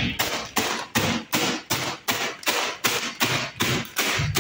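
Dry stale bread being pounded inside a plastic package on a hard surface, crushing it into breadcrumbs: steady, even blows at about two and a half a second.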